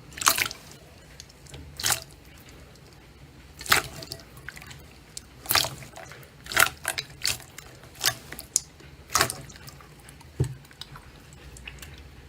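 Slime being worked by hand: a series of short, wet squelching pops and clicks at irregular intervals, about a dozen in all.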